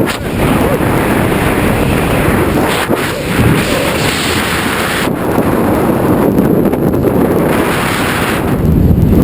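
Wind buffeting a skydiver's camera microphone, a loud, steady rush of air that swells and eases as the jumper descends.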